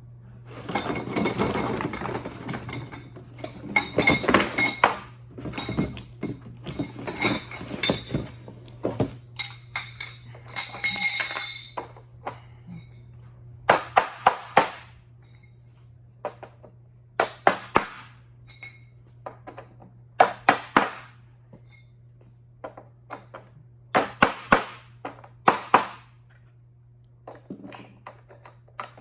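Parts of a floor-standing tool storage rack clattering and clinking as it is put together quickly by hand: a stretch of dense rattling and sliding for the first twelve seconds or so, then groups of sharp clicks and knocks every few seconds as pieces are fitted together.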